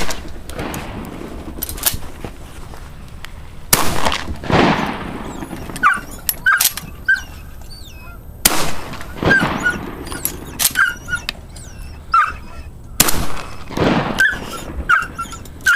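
Shotgun blasts, with three heavy shots about four to five seconds apart, each trailing off in a long rolling echo. Canada geese honk in short calls between the shots.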